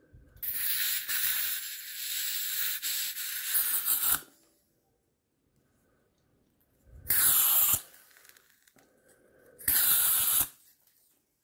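Butane lighter gas hissing as a refill canister's nozzle is pressed into the fill valve of a gas soldering iron. One long hiss of about four seconds, then two short bursts near the end.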